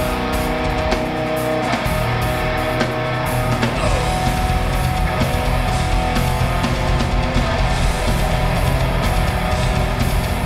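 A metal band playing live: distorted electric guitars and bass over a full drum kit with cymbals. About four seconds in, the drums' low end grows denser and busier.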